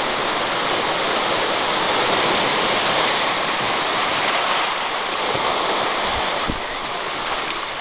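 Surf breaking and washing over a cobblestone beach: a loud, steady rush of water, with a couple of brief low bumps about six seconds in.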